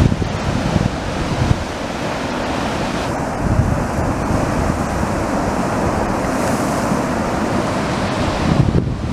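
Ocean surf breaking and washing over the rocks below a pier: a steady, loud roar of churning water with a heavy low rumble.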